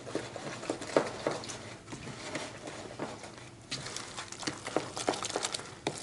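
Light, irregular clicks and taps, getting busier about two-thirds of the way through: a fork stirring thin grated-potato batter in a plastic bowl.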